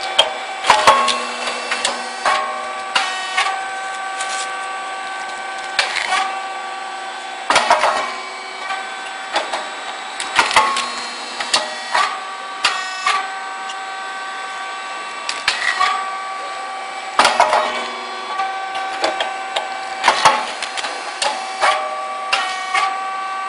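Shinyoung rice cake popping machine running through its cycles: sharp pops and clacks every few seconds as the moulds open and release the puffed cakes, with a steady machine whine between.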